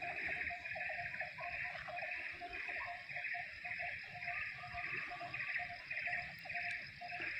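A chorus of calling animals: a pulsing call repeating about twice a second, over a faster, lower chirping trill, with a low rumble underneath.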